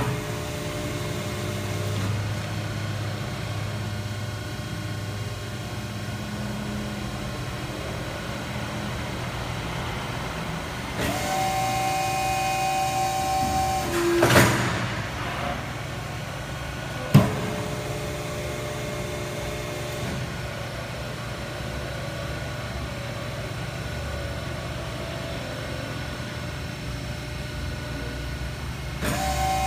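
Cincinnati 135CB hydraulic CNC press brake running: a steady hum from the hydraulic system, which rises to a louder, steady whine for about three seconds midway, swells into a brief rush, and is followed a few seconds later by a single sharp clunk. The louder whine comes back near the end.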